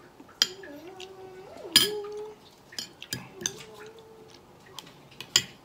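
Metal spoon clinking and scraping against a ceramic bowl while scooping fruit salad: about six sharp clinks, the loudest a little under two seconds in.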